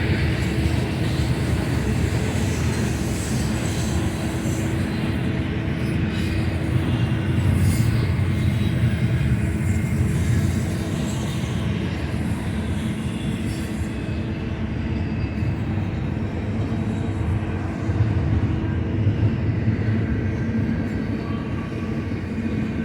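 Freight train rolling past: a steady low rumble of its cars and wheels on the rails.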